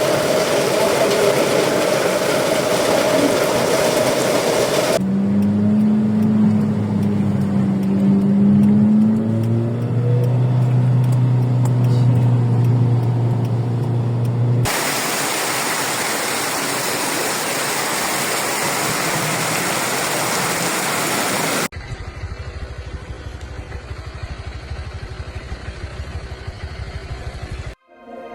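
Several short takes of street flooding after heavy rain: a loud steady rush of floodwater, broken up by a car engine running with its pitch rising and falling.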